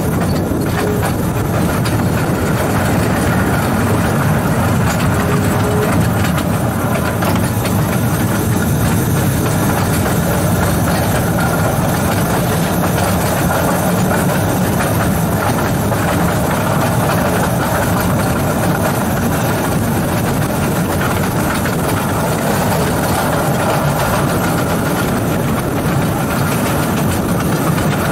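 Two-foot-gauge electric railway car running steadily along the track, heard from its cab: an even rumble of wheels on rail and drive machinery.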